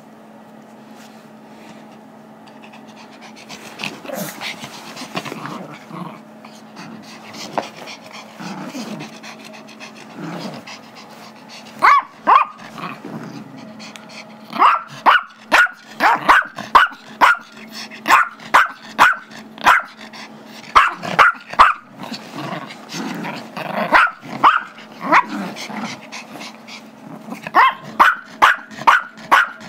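Small Chihuahua/Yorkie mix dog barking in play: short, sharp yaps in quick runs, several a second. It starts about twelve seconds in, after a quieter stretch, and grows more frequent from there.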